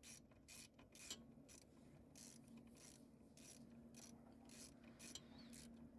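Faint ratchet wrench clicking, about two clicks a second, as it is worked back and forth to run a small bolt up snug.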